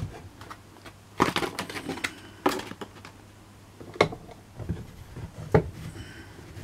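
Short pieces of cut pallet wood knocking and clattering against each other as they are handled and stacked, a handful of sharp wooden knocks with brief scuffing between them.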